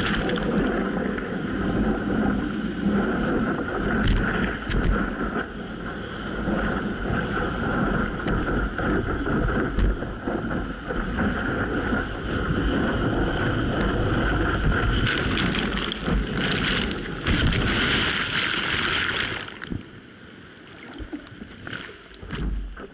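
Surf and choppy water sloshing around a camera held at the surface, with wind buffeting the microphone. It grows louder with rushing whitewater about 15 to 19 seconds in, then goes much quieter and duller as the camera dips under the water near the end.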